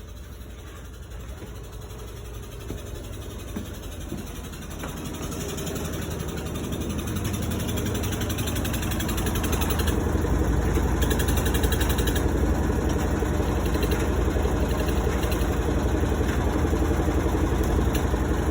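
Kenmore Series 100 top-load washer on its spin cycle making a horrible noise: a fast mechanical rattle that grows louder over the first ten seconds as the drum speeds up, then holds steady.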